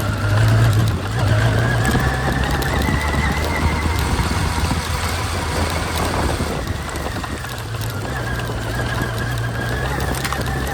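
Motorcycle engine running under way, with a whine that rises in pitch over the first few seconds and again near the end as the bike picks up speed.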